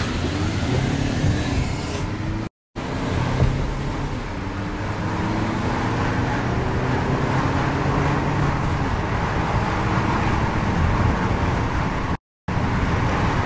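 Car engine accelerating hard from inside the cabin, its pitch rising again and again as it pulls through the gears over steady road and wind noise. The sound cuts out completely twice for a moment.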